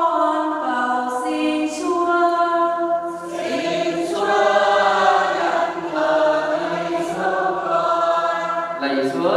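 A choir singing a slow hymn in long held notes, the sound growing fuller about three seconds in.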